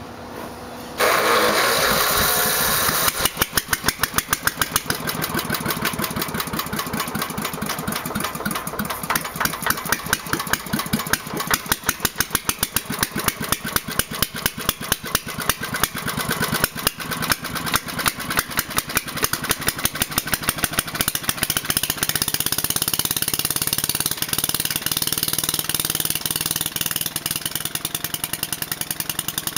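Briggs & Stratton 6 hp single-cylinder engine on a 1967 McCulloch Mite-E-Lite generator starting about a second in and running without its muffler, loud and rapid-firing. Its firing is uneven at first and steadier toward the end. It runs rough only on full choke, which the owner puts down to buildup in the carburetor.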